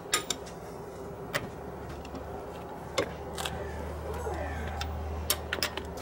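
Metal clinks and clicks of a lug wrench on a car's wheel lug nuts as they are loosened, a handful of separate sharp clicks spread over a few seconds. A low rumble comes in underneath about a second and a half in.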